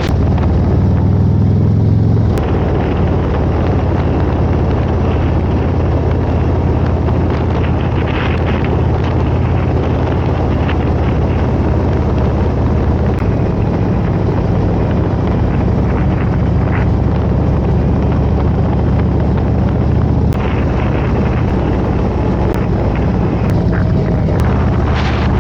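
Harley-Davidson Road Glide's V-twin engine running steadily at riding speed, with wind rushing over the microphone. The engine note shifts about two seconds in.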